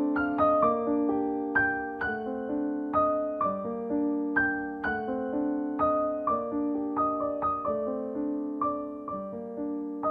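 Background music: a gentle piano melody of plucked-sounding notes over held chords.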